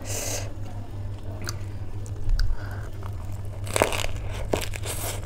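Close-miked biting and crunching chews of a leaf wrap filled with Wai Wai noodle chatpate. There is a sharp crunch at the start and a cluster of louder crunches about four seconds in.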